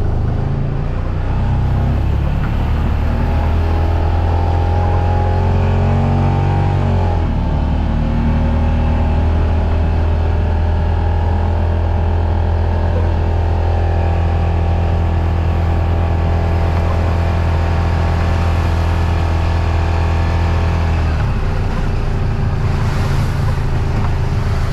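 Four-wheel-drive vehicle's engine running while driving, its note steady apart from two drops in pitch, about seven seconds in and again about twenty-one seconds in, as the engine eases off.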